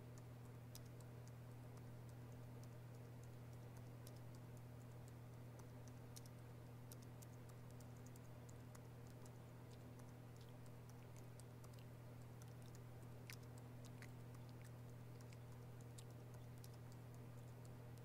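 Faint, irregular tapping on a laptop keyboard over a steady low hum of room tone.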